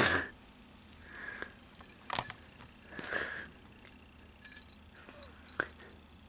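Blue-tongued skink biting at a strip of mango held in fingers: a few scattered soft, wet clicks and snaps of its jaws on the fruit.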